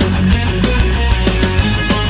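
Loud heavy rock music with electric guitar and a steady, driving drum beat.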